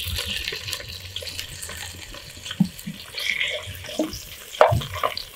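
Boiled chicken pieces sizzling in hot oil with onion in a clay cazuela, a steady hiss. A metal spoon clinks against the pot a few times near the end.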